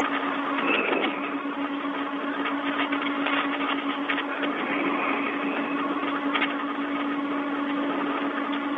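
Open space-to-ground radio channel carrying a steady hiss with a constant low hum, cut off sharply in the treble, with a few faint clicks between transmissions.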